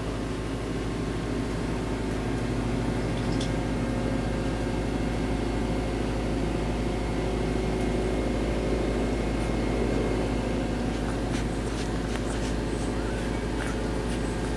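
A steady mechanical hum with several held tones underneath, with a few faint clicks near the end.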